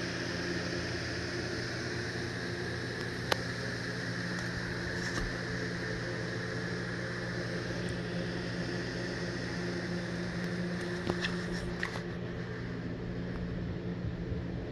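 Steady whirring hum of an electric motor or fan running evenly, with a sharp click about three seconds in and a few lighter clicks near the end.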